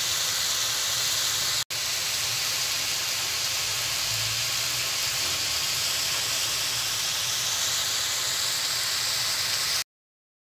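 Green beans sautéing in a wok, a steady sizzle. It breaks off for an instant about two seconds in and stops abruptly near the end.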